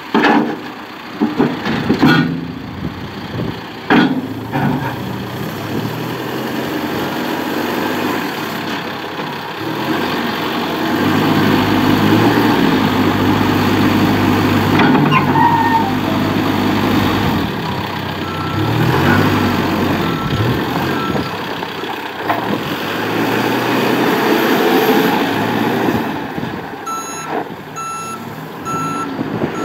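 John Deere 310SK backhoe loader's diesel engine running and working under load, its pitch rising and easing as the machine is operated, with sharp metal clanks in the first few seconds. Its reversing alarm beeps steadily just past halfway and again near the end.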